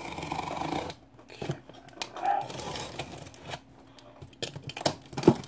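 Box cutter slitting the packing tape on a cardboard box with a rasping cut in the first second, then the cardboard being scraped and handled, with a few sharp knocks near the end as the flaps are worked open.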